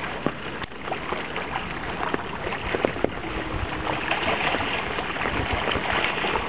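Choppy water washing and splashing against a boulder in shallow, reedy water, a steady wash broken by many small splashes.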